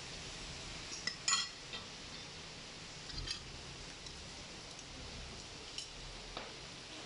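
Metal spoons and ladles clinking against bowls and crocks while a bowl of rice noodles is dressed with sauce and peanuts: a cluster of sharp clinks about a second in, another around three seconds in, and a couple of lighter ones near the end, over steady background noise.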